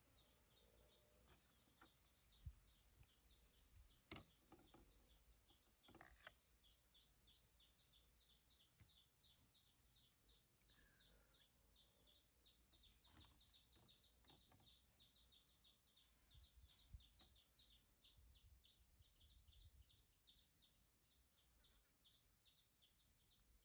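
Near silence: faint outdoor ambience with a fast, even run of high chirps from an unseen animal that never stops, and a few soft clicks.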